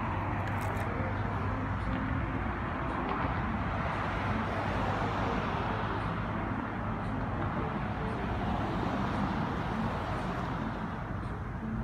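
Road traffic: cars passing on a multi-lane road, their tyre and engine noise swelling and fading as each goes by, over a steady low hum.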